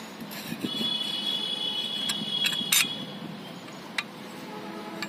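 Steel clutch plates clinking against each other and the drum as they are fitted onto a Carraro transmission clutch pack: a few sharp metallic clicks, the loudest cluster a little past the middle. A thin high steady tone holds for about two seconds in the first half, over a low steady hum.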